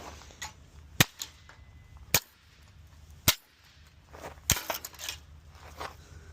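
Four sharp knocks or cracks about a second apart, each cutting off at once, with a few fainter clicks and rattles between them.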